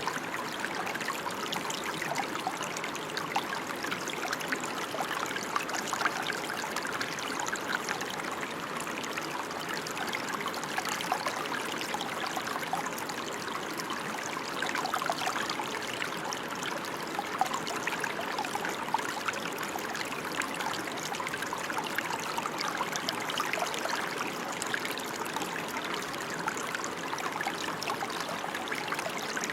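Steady rain: a dense, even hiss of many fine drops falling, unchanging throughout.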